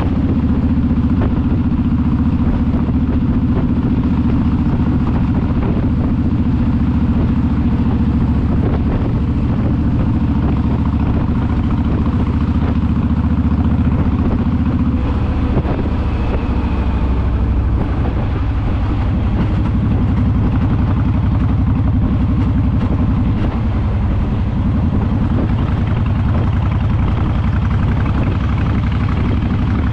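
Motorcycle engine running steadily at road speed, heard from the bike itself. Its note changes about halfway through.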